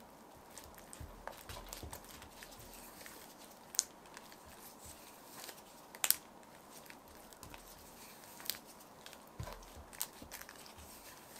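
Quiet kitchen handling sounds of food prep: scattered small clicks and sticky crackles, with two sharper clicks about four and six seconds in.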